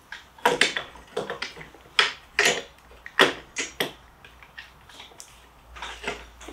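About a dozen irregular sharp clicks and knocks as an electric bike's hub-motor wheel is worked into its front fork, the axle seating in the spread fork dropouts. The clicks are loudest in the first half and fainter near the end.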